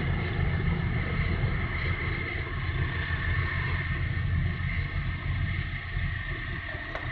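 Steady low rumble of ship engines from a large container ship and its escort tugboat moving through the harbour, fading slightly toward the end.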